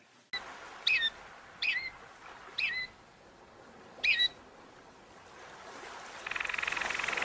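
Four short chirping bird calls about a second apart over faint outdoor ambience. About six seconds in, a fast, steady trilling chorus of frogs begins.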